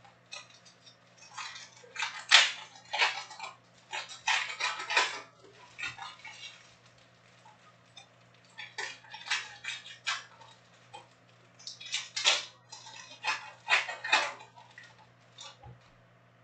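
Foil trading-card pack wrappers crinkling and tearing as packs are ripped open, with cards sliding and clicking against each other, in irregular clusters of crackly bursts.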